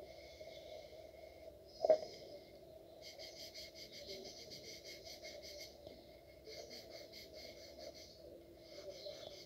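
Graphite pencil shading on paper: runs of soft scratchy strokes, with one sharp tap about two seconds in, over a steady low hum.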